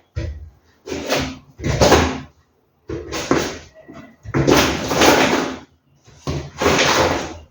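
Groceries being handled: a run of about six separate rustling, knocking handling noises, each lasting half a second to a second.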